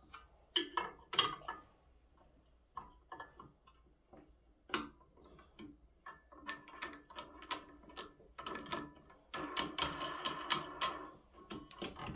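Steel parts of a Birchwood Casey clay pigeon launcher clicking and clanking as the throwing arm and spring mechanism are handled during assembly. Scattered single clicks at first, then a denser run of metallic rattling from about six to eleven seconds in.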